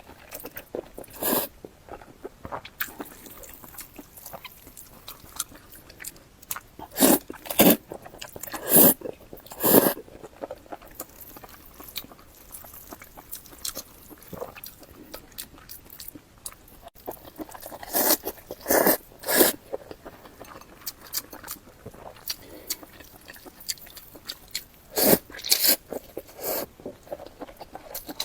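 Close-up eating sounds of a person chewing sesame-paste glass noodles. Soft mouth noises run throughout, with loud short bursts in clusters about a quarter, a third and near the end of the way through.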